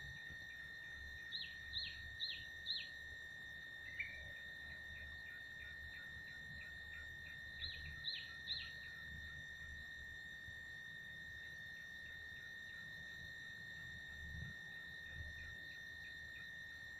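Steady high-pitched insect drone with a faint ticking about twice a second, while a bird calls twice: a quick run of four falling chirps about a second in, and three more about eight seconds in.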